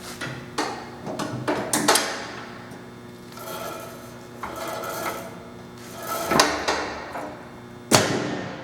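Doall 2013V vertical bandsaw humming while its dual-range transmission is shifted from low to high band speed, with a string of clunks and knocks, the loudest near the end.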